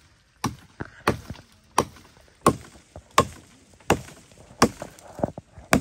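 Firewood being chopped: about eight sharp strikes of a blade into wood in a steady, even rhythm.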